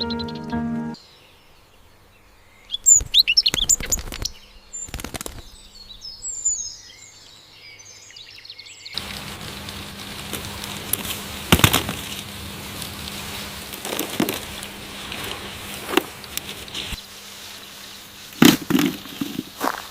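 Background music cuts off about a second in. Then come small birds chirping, two short loud rustling bursts, and from about halfway an outdoor hiss with scattered clicks and knocks.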